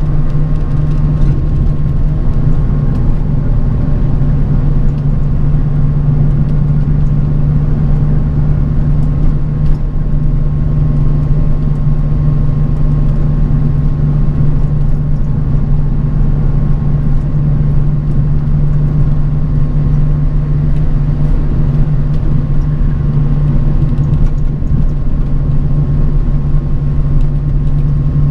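Bus cabin while travelling: a steady low drone of engine and road noise, with a thin steady whine above it.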